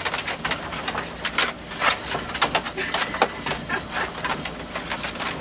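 A van driving slowly over a snow-covered road, heard from its open rear doors: a steady rumble and hiss with frequent irregular crackles and rattles.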